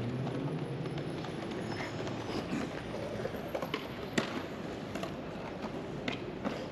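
Skateboard clacking on stone paving as a skater pops and lands jumps. Several sharp clacks, the loudest a little after four seconds in, over a steady hum of city background noise.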